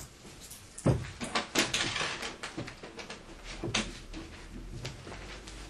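Irregular knocks and clicks, with a stretch of rustling about a second and a half in.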